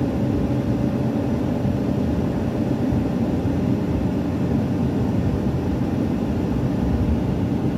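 Steady engine and road noise heard from inside a vehicle's cab while cruising on a highway, a constant low rumble with a faint steady hum above it.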